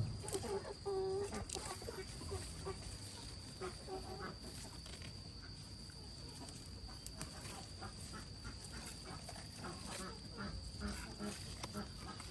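Chickens clucking, with a short call about a second in, over a steady high insect whine.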